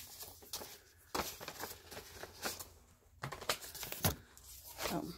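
Paper rustling with a few sharp crinkles and taps as paper cards are pulled from a paper envelope and handled.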